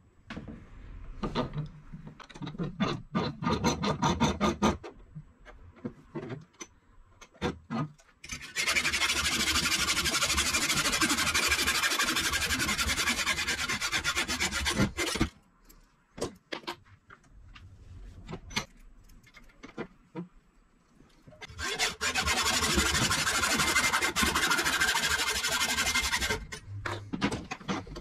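Hacksaw cutting a metal rod clamped in a bench vise. First comes a run of separate scraping strokes, then two long spells of steady fast sawing, the second near the end, with a few knocks in between.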